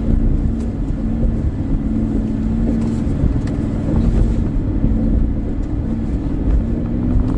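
Mercedes G-Class's twin-turbo V8 running at low, steady revs as the SUV crawls over rough, rocky ground, with the rumble of tyres on the rocks and a few faint clicks.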